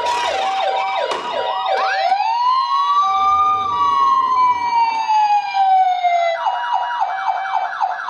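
Several battery-powered toy ambulances' electronic sirens sounding at once and overlapping. Fast wailing sweeps and a slow siren that rises and then falls run over steady two-tone hi-lo tones, and a rapid yelp starts near the end.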